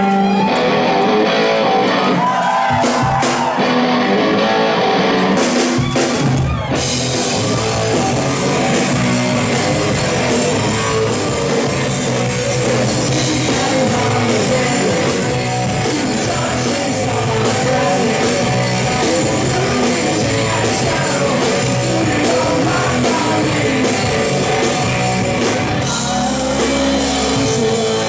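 Live rock band playing: electric guitars, bass and drum kit with a sung lead vocal. The first several seconds are sparser, with a few sharp drum hits, before the full band comes in about seven seconds in and plays on loud and dense.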